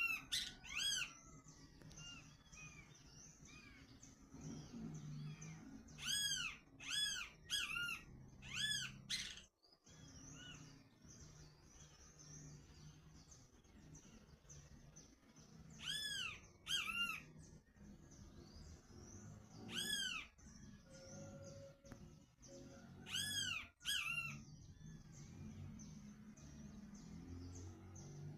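High-pitched animal calls, each a short rising-then-falling note, repeated in quick groups of three or four with pauses of a few seconds between the groups.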